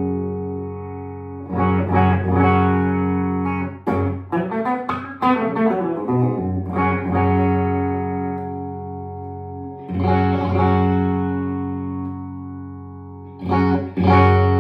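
Custom Stratocaster electric guitar played through an amp: full chords strummed and left to ring out, with a stretch of quicker picked notes a few seconds in.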